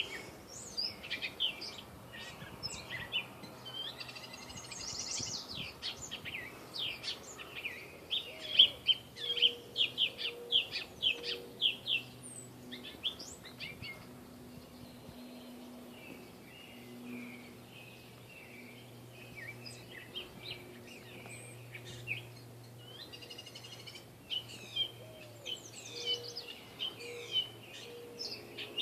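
Gray catbird singing a long, rambling song of quick, varied chirps and squeaky phrases, dense at first, sparser and softer through the middle, then busy again near the end. A faint low hum sits underneath.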